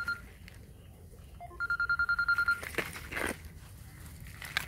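Phone ringing: a rapid trilling beep at one steady high pitch. One ring is just ending as the sound begins, and another lasting about a second starts about one and a half seconds in. A short rustling scrape follows near three seconds.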